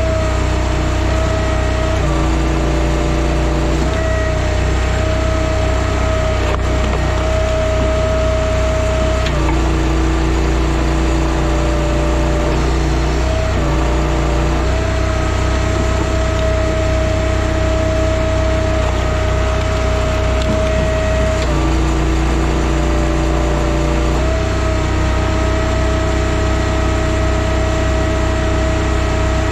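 TimberWolf Alpha 6 hydraulic log splitter running steadily, its engine note dipping and recovering every few seconds as the ram takes load splitting rounds, with wood cracking and splintering now and then.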